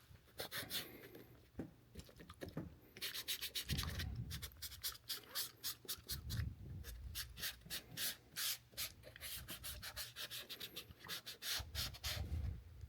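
Rubber protectant being rubbed onto rubber weatherstrip molding with an applicator and cloth: short scrubbing strokes, a few at first, then quick and steady at about three a second from about three seconds in, with a few soft handling bumps.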